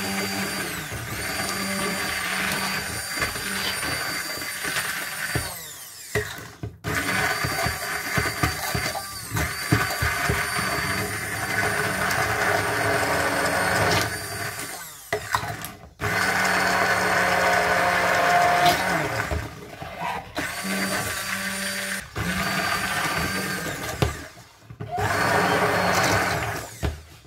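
Immersion (stick) blender running in a pot of cooked onion, peppers and broth, pureeing it into a sauce. The motor runs in long stretches, stopping briefly several times along the way.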